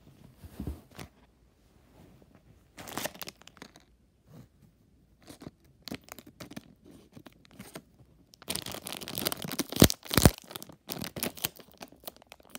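A Fingerlings Minis plastic blind-bag packet crinkling in the hands as it is worked at, then torn open across its crimped top seal in a run of loud crackling tears in the last few seconds.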